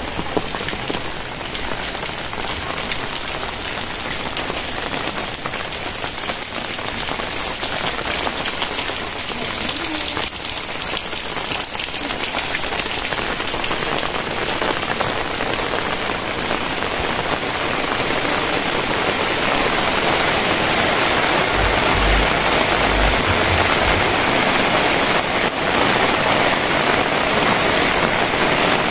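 Very heavy rain falling steadily, a dense hiss of drops on surfaces that grows louder in the second half, with a few brief low thumps about two-thirds of the way through.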